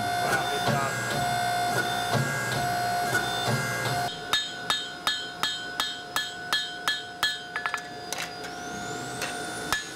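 A power hammer runs with a steady hum, working red-hot blade steel between its fullering dies with light, irregular blows. About four seconds in, sharp hand-hammer blows on hot steel on an anvil take over, about three a second, each with a short ring.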